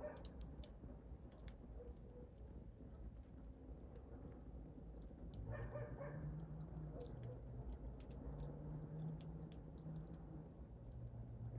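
Wood fire crackling softly, with scattered small pops and snaps over a low rumble. About halfway through a low steady hum comes in and holds.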